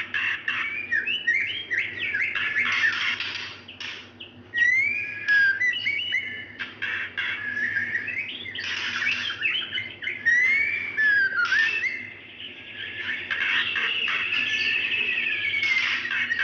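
Female white-rumped shama calling for a male, a breeding-condition call: a run of whistled notes sliding up and down, broken by short noisy bursts, with brief pauses about four seconds in and again around twelve seconds.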